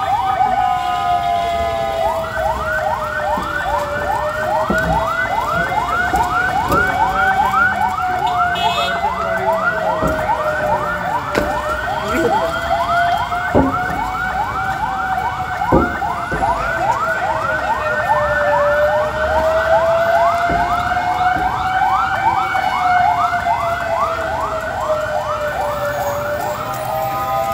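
Electronic sirens sounding together: a slow wail rising and falling every few seconds, with a fast yelp sweeping up about four times a second that joins about two seconds in. A couple of sharp knocks sound in the middle.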